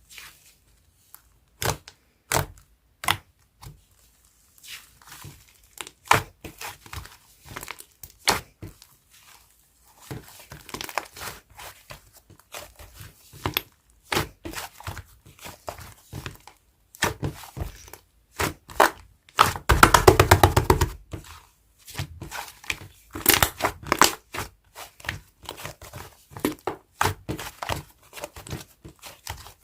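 Fluffy clay slime being squished and poked by hand, making a string of sharp clicking pops and softer crinkling sounds. About two-thirds of the way through there is a dense run of rapid crackling pops, the loudest part.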